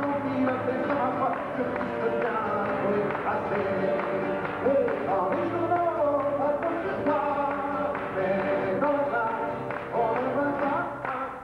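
Live acoustic guitar accompanying a man singing.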